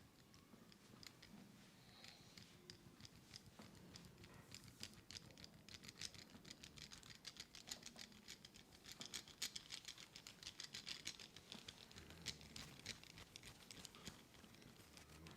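Head massage on hair and scalp: fingers rubbing and working through hair make a faint, rapid crackling of small ticks and scratches, thickest in the middle.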